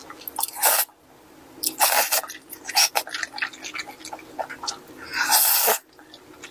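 Close-miked eating: wet chewing clicks with several loud bursts of noise, the longest about five seconds in.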